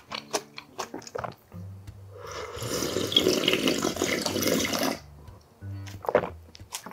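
A person slurping tonkotsu ramen broth straight from a large ceramic bowl: a loud wet sucking stream that starts about two seconds in and lasts about two and a half seconds, with short wet mouth clicks before and after it.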